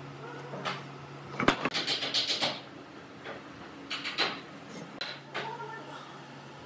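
Aluminium speed square and pencil being worked on a pine board: a few light knocks as the square is set down and shifted, and a short run of scratchy pencil strokes about two seconds in, over a steady low hum.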